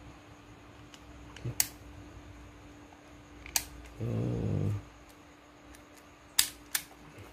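Four sharp clicks from the action of a Makarov MP-654K CO2 airsoft pistol as its hammer and trigger are worked in single and double action. The loudest comes about six seconds in, with a quick second click just after it. A brief low hum-like sound comes about four seconds in.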